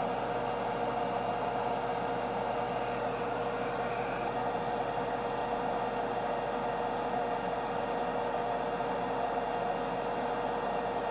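Steady whirring hiss with a constant mid-pitched hum through it, as from a small fan running.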